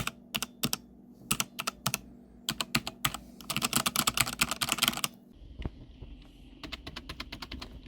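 Typing on a computer keyboard: scattered keystrokes, then a quick run of rapid typing, a pause of about a second and a half, and more keystrokes near the end.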